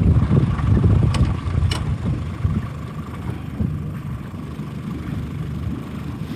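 Boat motor running steadily at low speed, with wind buffeting the microphone. Two short clicks sound about a second in.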